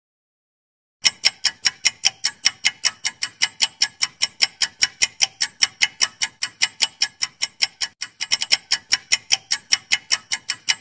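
Clock-tick sound effect of a quiz countdown timer: fast, even ticks, about five a second, starting about a second in, with a brief hitch about eight seconds in.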